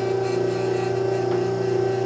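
Automatic clay-target trap machine's electric motor running with a steady, even hum.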